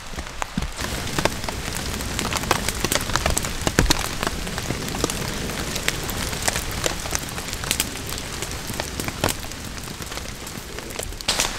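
Steady rain falling, with many sharp, scattered drop hits over an even hiss.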